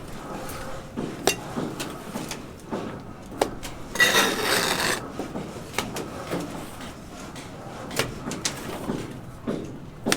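Construction work: scattered knocks and clatters of wood and tools, with a scraping, rasping noise lasting about a second, about four seconds in.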